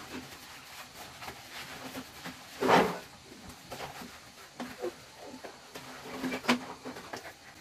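Scattered knocks and rubbing from cleaning inside a plastic-walled shower cabin, with one louder knock about two and a half seconds in.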